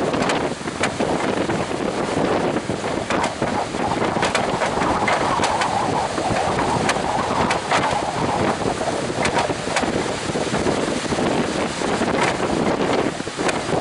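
Strong wind blowing across the microphone, rushing and crackling in gusts, over the wash of heavy surf.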